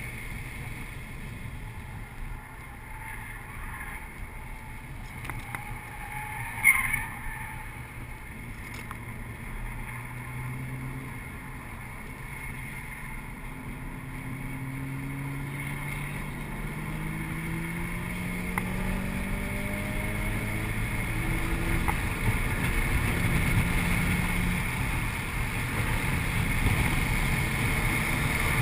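Audi RS4's 4.2-litre V8 heard from inside the cabin under way, with steady road and wind noise; the engine note climbs in pitch through the second half as the car accelerates. A single sharp knock about seven seconds in is the loudest moment.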